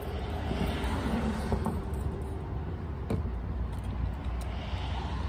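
Plastic trigger spray bottle hissing as it sprays water onto hands, about a second in and again near the end, with a single click about three seconds in. A steady low rumble runs underneath.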